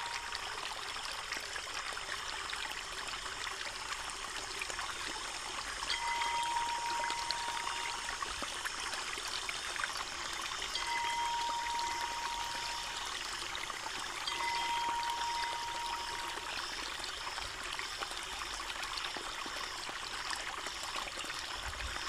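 Water pouring steadily from a bamboo spout onto wet stones and splashing into a small pool, a continuous stream with no break. Three times a thin, even tone lasting a second or two sounds above the water, about six, eleven and fourteen seconds in.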